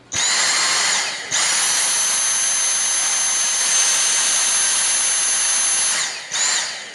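Dyson V6 cordless stick vacuum switched on, its motor running with a high whine; about a second in it steps up to max power with a higher, louder whine and runs steadily. It is switched off about six seconds in, spinning down, then briefly run again.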